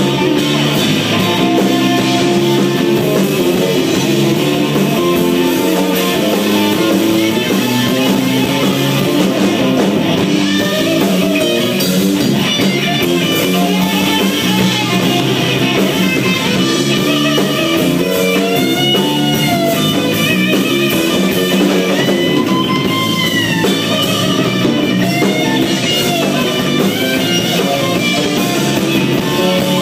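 Rock band playing: electric guitar with bending, gliding notes over bass and drum kit.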